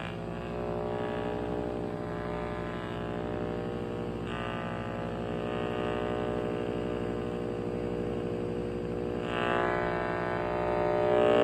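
HF35C high-frequency analyzer's speaker buzzing as it picks up microwave leakage from a running microwave oven, over the oven's own hum. The buzz grows louder about four seconds in and again near the end.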